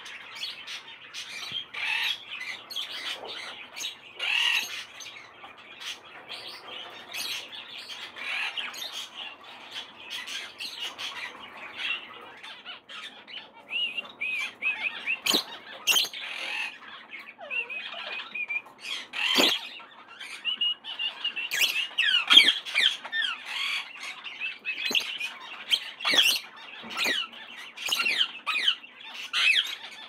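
Many pet parrots in an aviary calling at once: an unbroken, overlapping chatter of high chirps and squawks, busiest and loudest a little past the middle.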